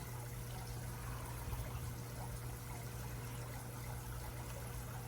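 Steady low electrical-type hum with an even background hiss, without any distinct sound events.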